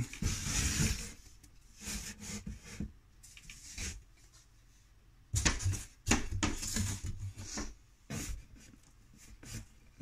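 Wooden beehive parts and a cardboard shipping box being handled: cardboard rustling and scraping in uneven spells, with a few sharp knocks about five to six seconds in.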